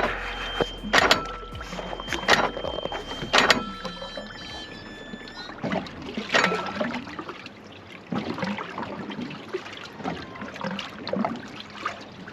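Four sharp knocks about a second apart, then softer irregular splashing and small knocks of water against a small boat.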